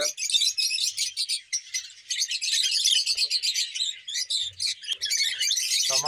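A flock of caged lovebirds chirping and chattering, many high calls overlapping without a pause.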